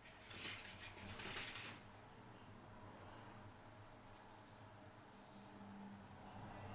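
A cricket chirping in two high trills, a long one of about a second and a half and then a short one. A rustling scrape comes near the start.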